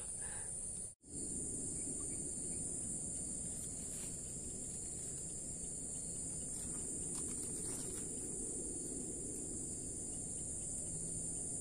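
Steady high-pitched insect chorus, crickets or similar, over low background noise; the sound cuts out for an instant about a second in.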